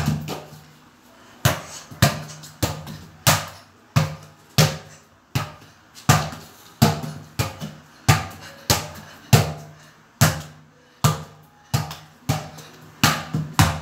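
A football kicked repeatedly by a bare foot while being juggled: sharp thumps, each with a short hollow ring, coming unevenly about every half to three-quarters of a second.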